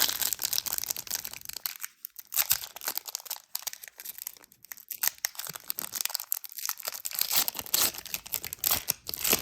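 Crinkly foil wrapper of a trading-card pack being torn open and crumpled, with cards handled in between: an irregular crackling rustle.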